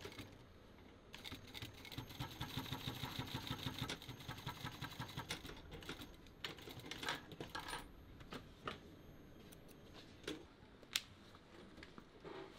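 Mitsubishi industrial sewing machine stitching leather in a rapid, even run of needle strokes for about four seconds, then in a few short bursts. A few single sharp clicks follow near the end.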